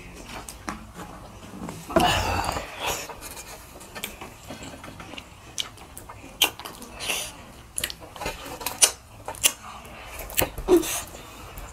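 Fingers scraping and tapping on a metal plate while mixing and scooping food by hand, a scatter of short clicks and scrapes, with eating noises as food goes to the mouth; a louder rustling stretch comes about two seconds in.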